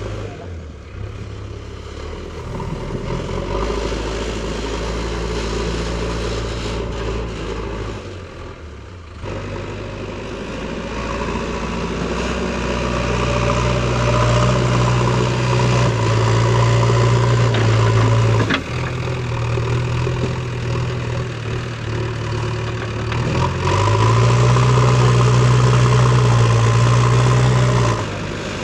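JCB backhoe loader's diesel engine running steadily, revving up and getting louder twice for several seconds at a time as it works.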